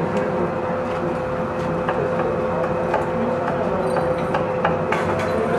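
Busy background noise: a steady hum with a sustained tone, under irregular sharp clicks and clatter.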